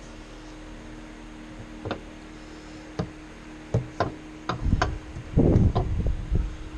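Irregular knocks and clunks from parts or tools being handled during work on the fuel filter, a few single knocks and then a louder cluster of thumps near the end, over a steady hum.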